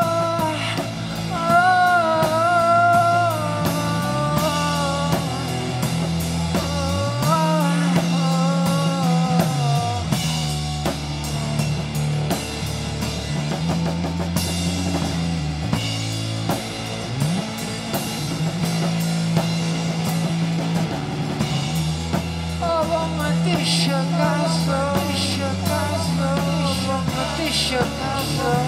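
Rock band playing live: a drum kit keeping the beat under a bass line and electric guitar, with a lead melody most prominent in the first ten seconds and again near the end.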